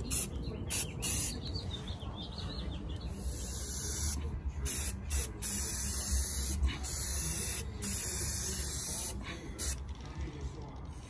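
Aerosol spray-paint can hissing as red paint goes onto a drill press's cast base: a few short bursts, then longer sprays from about three seconds in, broken by brief pauses.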